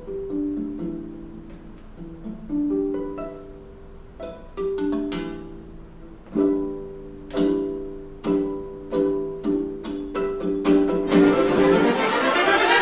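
Acoustic guitar played solo: single plucked notes ringing out in a slow melody that quickens into a run of faster repeated notes. Near the end a denser, fuller music takes over.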